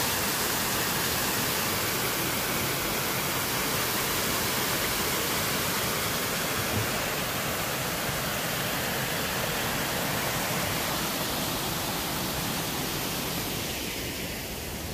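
Waterfall cascading over rocks: a steady rush of water that eases a little near the end.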